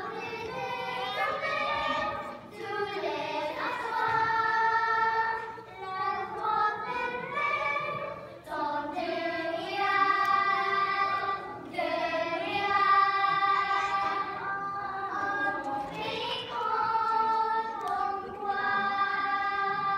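A group of young children singing a song together on stage, in short sung phrases with brief pauses between them.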